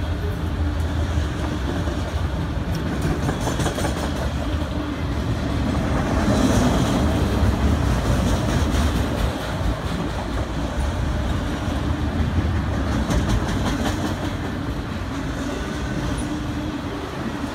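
Autorack cars of a CSX freight train rolling past at close range: a steady rumble of steel wheels on the rails with clattering and clicks, a little louder about six to nine seconds in.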